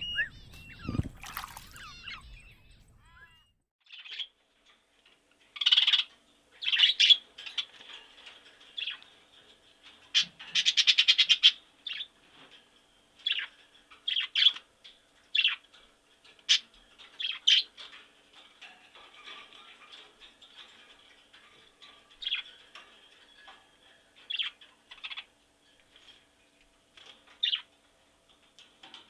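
Scarlet macaw squawking: short harsh calls every second or two, with one longer, rapidly pulsing call about ten seconds in.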